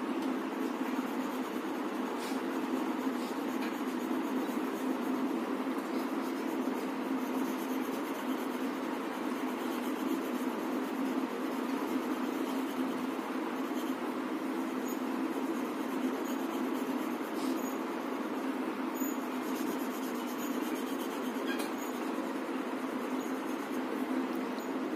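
Graphite pencil shading on paper, the lead rubbed back and forth in a steady, continuous scratching.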